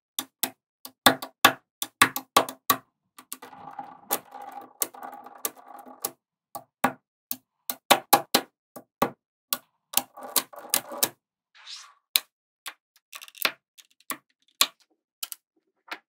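Small magnetic balls clicking sharply and irregularly as clusters are snapped onto a wall of balls, with a softer rattle of balls shifting against each other in between.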